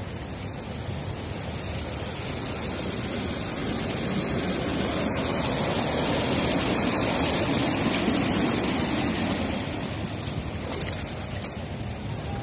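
A car drives through floodwater during heavy rain. The rush of water thrown up by its wheels swells to a peak about halfway through and fades away toward the end, over the steady hiss of the rain.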